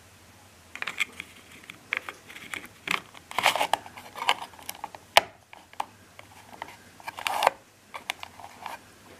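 A black ceiling-lamp cover being handled and fitted over the wiring of its mounting base: a string of clicks, scrapes and rustles, with one sharp click about five seconds in.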